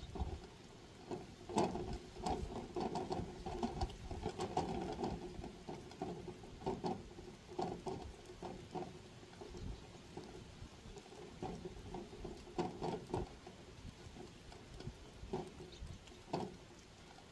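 Wind gusting against the microphone outdoors, an uneven low rumble with scattered crackles and rustles.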